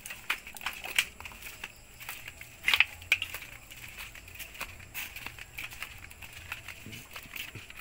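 Footsteps of several people walking a rough path, with irregular crackles and snaps, over a faint, steady high-pitched drone.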